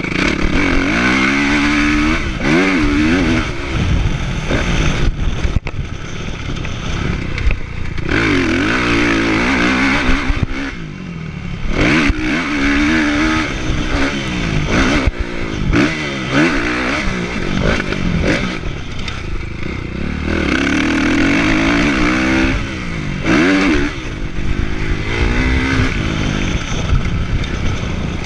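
Kawasaki motocross bike's engine heard from the rider's chest, revving up and dropping back over and over as the throttle is worked and gears are shifted around the track.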